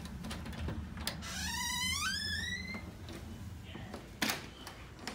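A door latch clicks and the wooden door creaks open with a squeak that climbs in pitch for about a second and a half. A single knock follows about four seconds in.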